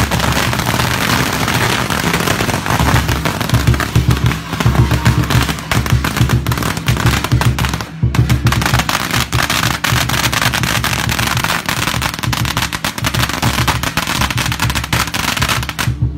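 Strings of firecrackers crackling rapidly and continuously, with a brief break about halfway, over music with low steady tones.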